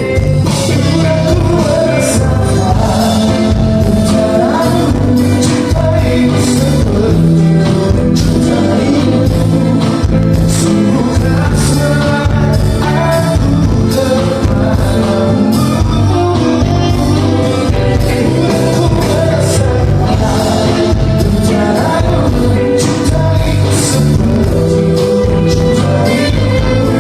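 Live band playing a song, with singing over a steady drum beat.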